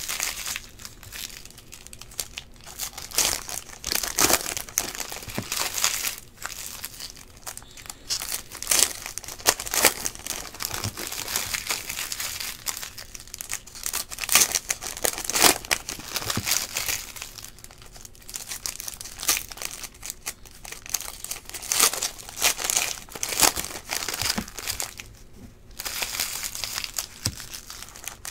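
Foil wrappers of Panini Prizm football card packs crinkling and tearing as they are opened by hand, with the cards inside handled and set down; irregular crackles and rustles throughout.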